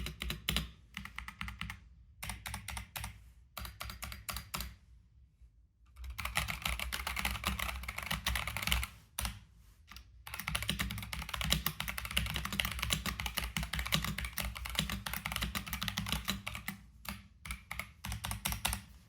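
Typing on an Epomaker TH66 mechanical keyboard with Boba U4T tactile switches (65 g), a dense run of key clicks and clacks. There are brief pauses about five seconds in and again near ten seconds, and fast continuous typing between them.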